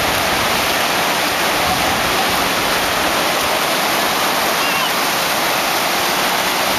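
Small surf breaking and washing up a sandy beach: a steady, even rush of water noise.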